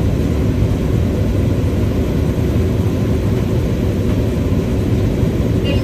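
Combine running while harvesting corn: a steady, loud, low machine rumble of engine and threshing works.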